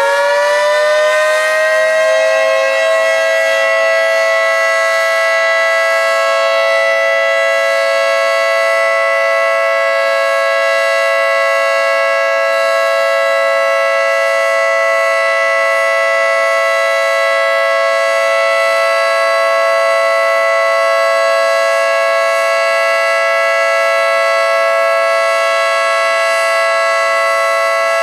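Federal Signal 3T22B three-tone outdoor warning siren sounding for a test. It finishes winding up in the first couple of seconds, then holds a loud, steady chord at full pitch.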